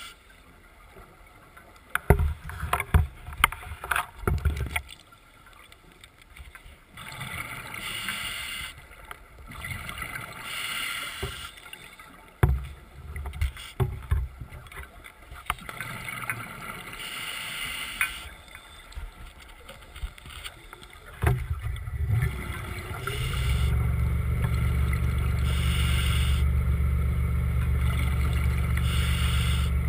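Underwater recording: irregular knocks and rushing swells, then about 23 seconds in a Seacraft diver-propulsion scooter's electric motor starts a steady low hum that runs on.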